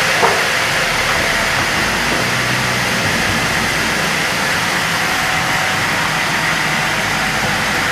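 A heavy engine running steadily, with a constant low hum under a loud, even noise.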